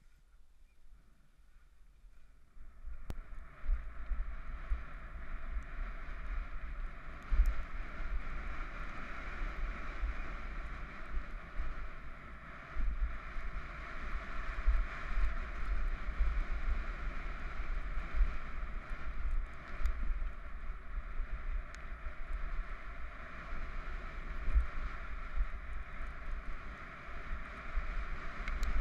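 Downhill mountain bike descending a rough gravel track, heard as wind rushing on a helmet-mounted camera's microphone with the low rumble of tyres and frame over the stones. It starts quietly and builds to a steady rush about three seconds in, with occasional sharp knocks from rocks and the bike.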